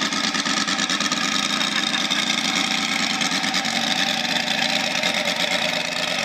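UMS 125 cc engine of a quarter-scale model warbird running steadily on the ground, propeller turning.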